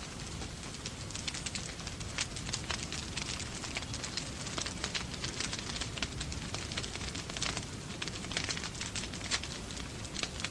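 Wood fire in a fireplace crackling, with many quick irregular pops over a steady hiss of falling rain.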